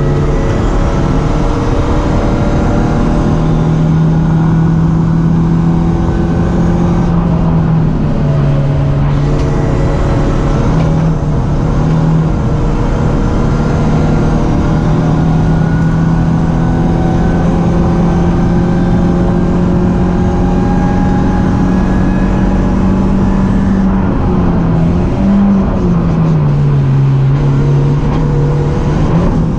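BMW 318ti Cup race car's four-cylinder engine held at high revs under hard acceleration, with short drops in pitch at gear changes. Near the end it lifts off, blips once on a downshift and climbs again back on the throttle.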